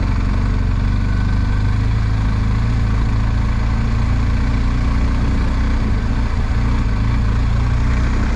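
BMW R1250 GS Adventure's boxer-twin engine running steadily at low revs, without revving.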